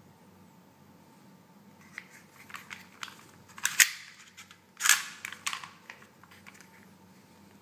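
Slide of a KWA/Umarex H&K USP Compact gas blowback airsoft pistol being racked by hand: a run of small clicks, then two sharp clacks about a second apart as the slide is pulled back and let go.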